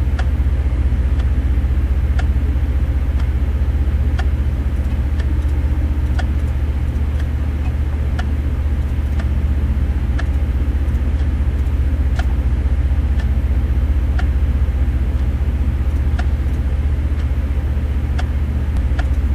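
Steady low engine drone with faint, irregularly spaced ticks.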